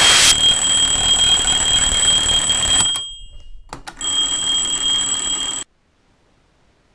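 A shrill, steady electronic alarm tone over a hissing noise. It breaks off about three seconds in, sounds again about a second later, then cuts off suddenly.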